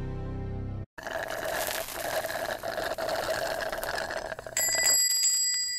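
A few steady low tones break off, then an alarm clock rings with a fast, dense clatter for about four seconds. Near the end a bell strikes and keeps ringing with a clear, lingering tone.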